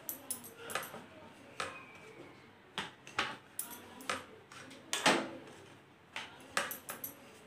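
Wooden rolling pin rolling out wheat-flour naan dough on a wooden board, with a dozen or so short clacks and knocks of the pin against the board at uneven intervals.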